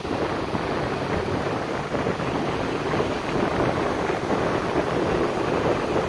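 Strong wind buffeting the microphone over the steady wash of breaking surf.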